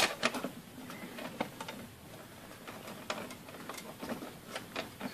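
Screwdriver driving a heatsink screw into a computer, giving faint, irregular small clicks and ticks of metal on metal.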